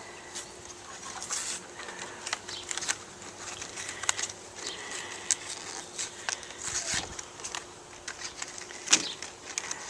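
Irregular clicks, rattles and scrapes from wiper blades being handled by hand, with a faint steady hum underneath.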